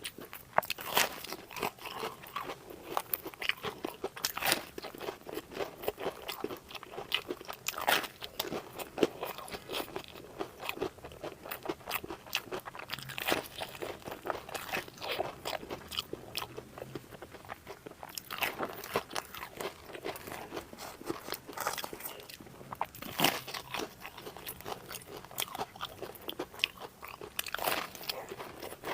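Close-miked eating: a person biting and chewing crunchy food, with sharp crunches coming irregularly, several every few seconds.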